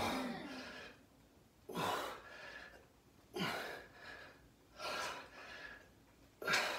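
A man breathing hard and rhythmically while curling a barbell, one forceful breath about every second and a half, with the effort of each rep.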